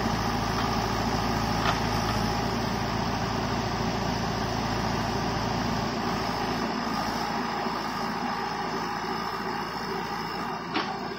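JCB 3DX backhoe loader's diesel engine running steadily while the backhoe arm digs, easing slightly past the middle. Two short, sharp knocks, one early and one near the end.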